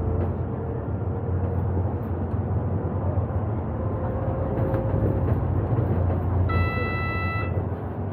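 Bus running along the road, a steady low engine and road rumble heard from inside the cabin. Near the end a high, steady beep sounds for about a second and cuts off.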